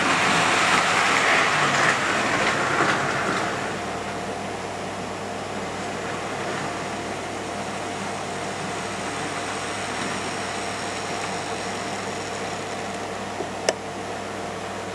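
Tri-ang model Caledonian Railway steam locomotive and coaches running on model track, the motor whirring and the wheels clicking over the rail joints. The sound is loud at first while the train passes close, drops after about three seconds to a steady lower running sound, and there is one sharp click near the end.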